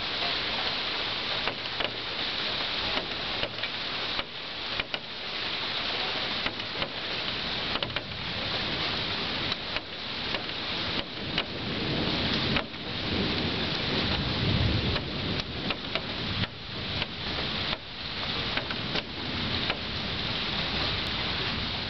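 Thunderstorm: rain falling steadily in a dense hiss, with a low roll of thunder swelling a little past halfway.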